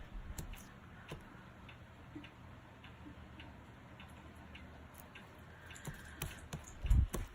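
Sticky slime being kneaded and pulled: quiet clicks and small pops, over a faint, even ticking about every half second or so. The clicks grow busier near the end, with a soft thump just before it ends.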